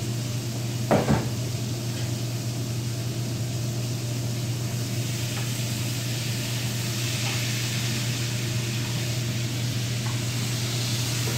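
Steady low hum under an even hiss of kitchen background noise, with the hiss growing somewhat stronger in the second half. A brief louder sound comes about a second in.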